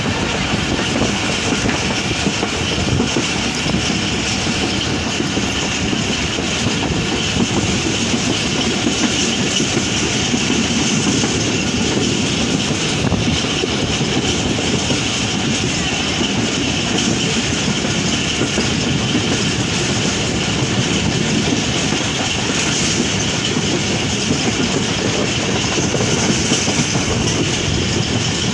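Passenger train running at speed, its wheels on the rails making a steady running noise, heard from beside the coach's open door or window.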